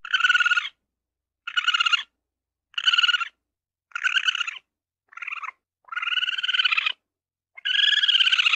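Ferret dooking: a rapid clucking chatter in short bursts, seven in a row about a second apart, the last two longer than the rest.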